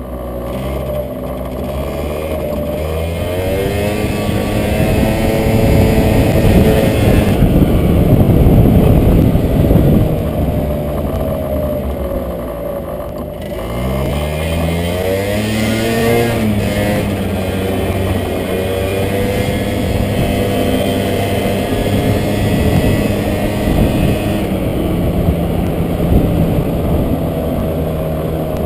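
Vespa scooter's single-cylinder engine under way, its pitch climbing as it accelerates, falling about halfway through as the throttle eases, then rising again and holding steady at a cruise. Wind noise rumbles on the microphone throughout.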